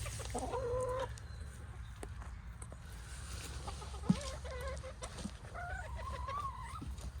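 Hens calling, three drawn-out pitched calls with a few clucks between, and a single sharp knock about four seconds in.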